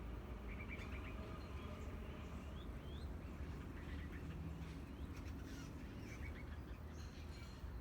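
Birds chirping faintly: short clusters of chirps and a few quick rising notes scattered through, over a steady low rumble.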